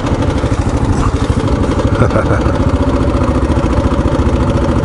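Dual-sport motorcycle engine running at idle with a steady, rapid pulse.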